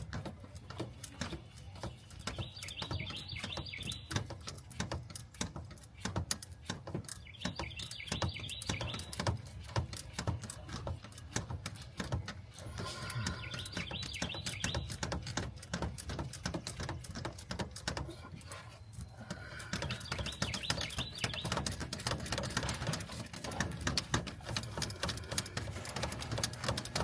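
Birds chirping now and then in the background over a steady run of small metallic clicks and knocks from hand tools at work on the engine.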